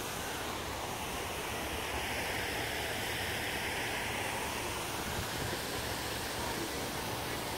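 Steady, even rushing noise of open-air ambience, with wind on the microphone.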